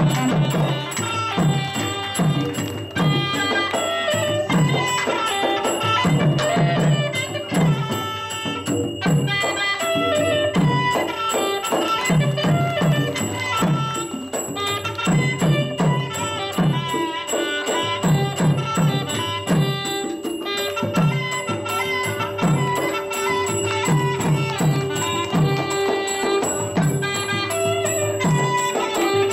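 Traditional southern Thai Nora ensemble music: a wavering reed-pipe melody over a held tone, with quick, steadily repeated drum strokes underneath.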